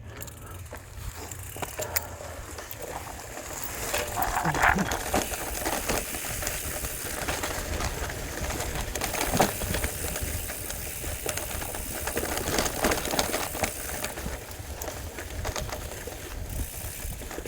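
Bicycle riding noise with wind rumbling on the microphone, scattered clicks, and a short pitched call about four seconds in.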